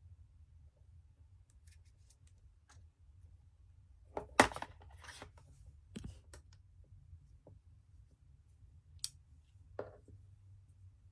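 Unboxing handling noise: scattered clicks and taps from packaging and watch parts. The loudest is a sharp snap about four seconds in, followed by a short rustle, with a few lighter knocks later.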